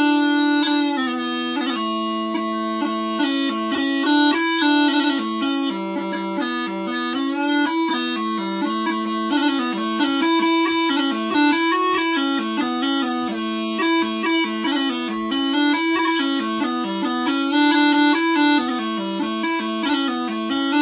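Four-drone set of Quietpiper small pipes played for the first time: a chanter tune over a steady drone. The chanter holds one note for about the first second, then the melody moves in quick steps.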